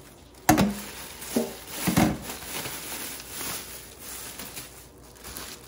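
Stainless steel colander set down in a stainless steel sink, clanking three times with a short metallic ring, followed by plastic bags rustling as they are handled.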